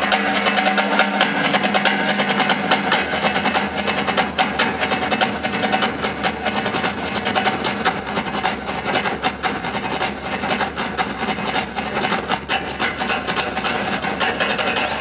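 An ensemble of drummers playing fast, dense beats on large side-slung drums, with steady held tones underneath.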